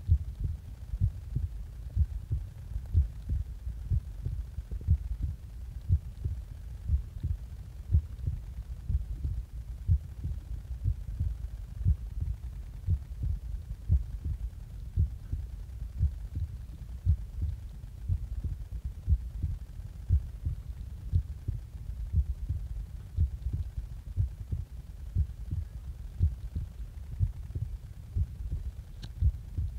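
A person's heartbeat just after waking, heard close up: steady, regular low thumps of the heart.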